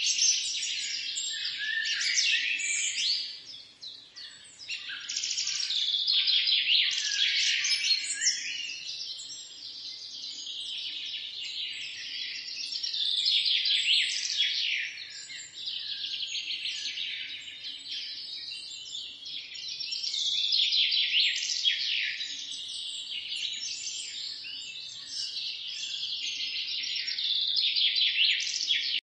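A dense chorus of songbirds singing, many overlapping chirps and trills with no pause, dipping briefly in loudness a few seconds in.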